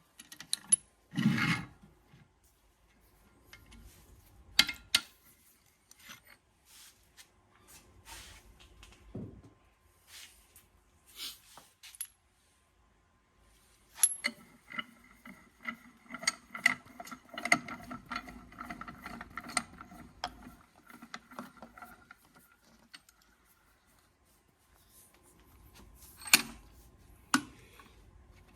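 Metal clicks and knocks of hand tools and small parts being handled on a diesel VE injection pump. In the middle comes a longer stretch of rapid metallic clicking with a ringing tone under it.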